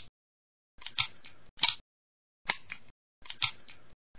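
Semi-automatic pistol's action being handled: short bursts of sharp metallic clicks, about one burst a second, each a loud click followed by lighter ones, with silence between.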